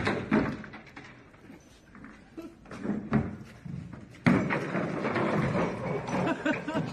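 Wooden wardrobe knocking against a metal car trailer and then crashing to the pavement: a few sharp knocks and thuds, then a loud crash about four seconds in.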